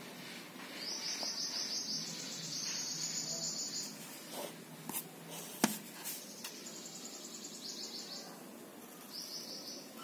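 A cricket trilling in several bursts of a second or so each, high-pitched and evenly pulsed. A sharp tap sounds about halfway through, the loudest moment.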